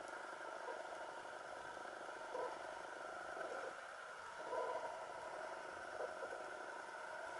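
Muffled underwater noise heard through a camera's waterproof housing: a steady hiss with a handful of brief, soft gurgles, the longest about halfway through.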